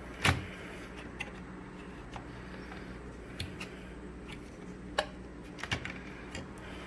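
Hard drive in its mounting bracket being handled and set into a mini PC's case: a sharp click just after the start, then a few lighter clicks and taps around five to six seconds, over a steady low hum.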